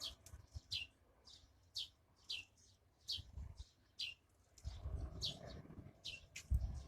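A small bird chirping repeatedly, short high chirps that slide downward in pitch, coming about once or twice a second. A low rumble joins in the second half.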